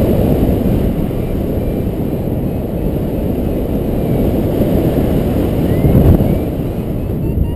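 Wind rushing over the microphone of a paraglider's harness-mounted camera in flight: a steady, loud rumble that swells in a gust about six seconds in.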